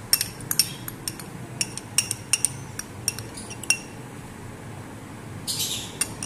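A small glass bowl clinking again and again, sharp glassy taps with a short ring, as melted ghee is emptied out of it, then a brief scrape near the end.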